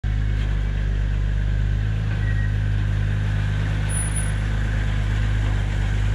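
Engine of a home-built articulated off-road machine running steadily as the machine drives, a constant low engine note with no change in speed.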